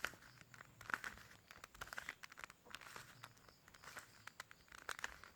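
Plastic Rubik's cube layers being twisted by hand, a faint, irregular run of small clicks and clacks as the right-hand move sequence is repeated.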